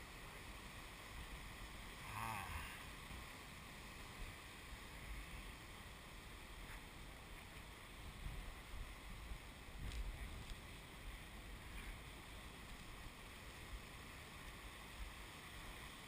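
Low, steady wash of distant heavy surf with wind buffeting the microphone, and a brief higher-pitched sound about two seconds in.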